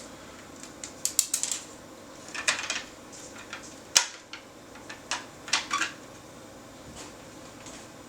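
Scattered sharp clicks, some single and some in quick clusters of two to four, from a desktop computer's mouse and keyboard being operated on an old Macintosh Performa. A louder single click comes about four seconds in.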